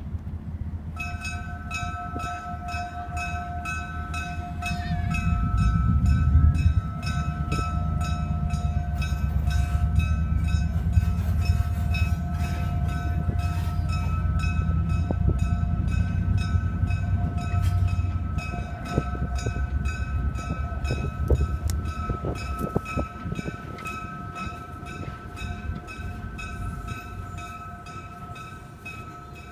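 Diesel switcher locomotive running as it moves along the track: a low engine rumble swells about five seconds in and eases off after about eighteen seconds, while the locomotive's bell rings steadily over it, starting about a second in.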